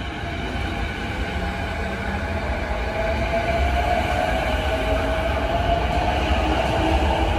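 JR East E233-series electric commuter train pulling out of the station and gathering speed. Its motor whine rises steadily in pitch over a low rolling rumble that grows louder as the cars pass.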